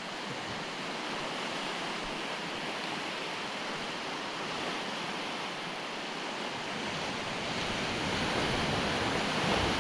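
Surf washing onto a sandy beach: a steady rush of breaking waves that grows louder over the second half.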